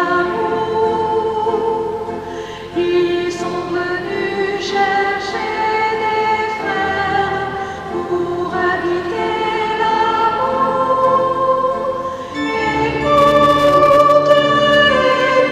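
A choir sings a hymn, with held organ chords underneath that become stronger about twelve seconds in.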